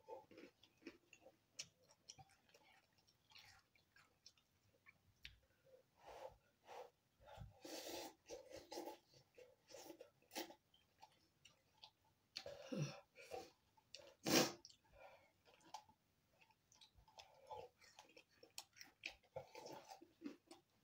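A person eating instant cup noodles with a fork: quiet chewing and slurping with small wet mouth clicks, and one sharper, louder burst about 14 seconds in.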